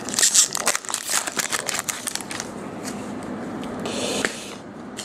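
Baseball card pack wrapper crinkling and cards rustling as they are handled, with dense crackling for the first couple of seconds and then quieter rustling and a brief hiss.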